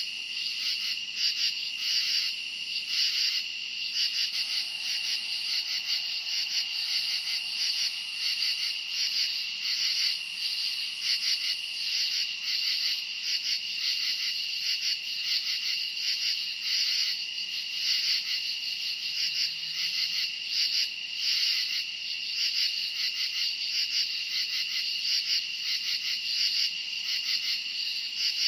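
Dense night chorus of crickets chirping: a steady high trill with a faster pulsing layer above it, unbroken throughout.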